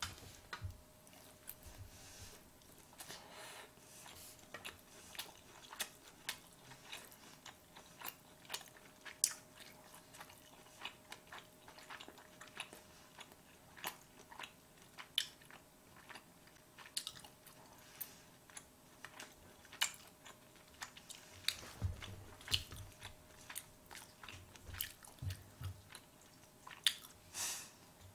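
Faint close-miked chewing and mouth sounds of someone eating sushi, with scattered small clicks and a faint steady hum underneath.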